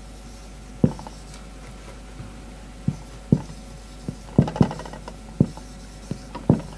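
Whiteboard marker tapping and scraping on a whiteboard as words are written by hand, in short irregular strokes, several close together about two thirds of the way through.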